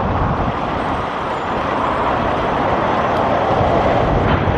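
Strong wind buffeting the camera's microphone: a steady, loud, gusty rumble and rush.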